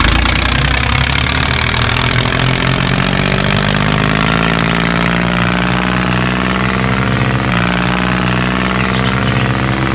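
An engine running steadily at an even speed, with a slight shift in its pitch about seven and a half seconds in.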